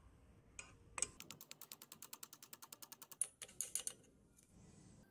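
A ratcheting mechanism clicking rapidly, about ten clicks a second for some two seconds, then a few more clicks after a short pause.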